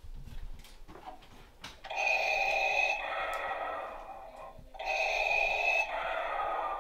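Darth Vader's respirator breathing: two slow, hissing mechanical breaths, each an in-breath followed by a weaker out-breath, the first about two seconds in and the second near the end. A few faint clicks come before them.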